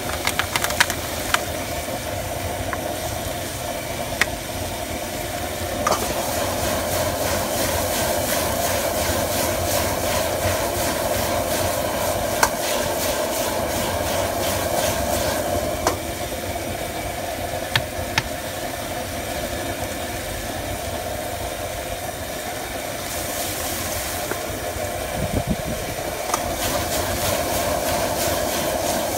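High-power Eastman Outdoors Kahuna propane wok burner running steadily under a carbon steel wok, with chicken and pak choi sizzling and a metal ladle clanking and scraping against the wok every few seconds.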